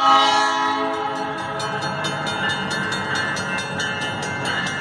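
Locomotive horn of an approaching train sounding, a chord of steady tones that fades away after about a second. Then a railroad crossing bell rings rapidly, about four strikes a second.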